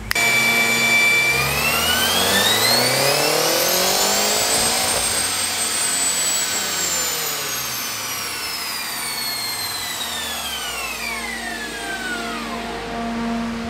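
BMW M5's twin-turbo V8 making a full-throttle pull on a chassis dyno: after about a second at a steady speed the engine note rises smoothly for three or four seconds, then falls away slowly as the car and rollers coast down.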